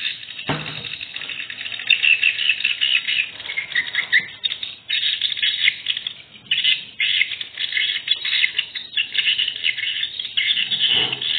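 Swiftlet calls, a dense run of rapid high chirps and twitters that keeps flickering on and off, heard through a surveillance camera's thin, low-fidelity microphone. A short low thump comes about half a second in.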